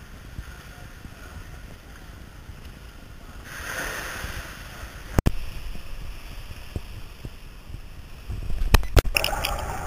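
Swimming-pool water splashing and sloshing, with a swell of splashing about four seconds in and a single sharp click a second later. Near the end, low rumbling and several knocks from the camera being handled.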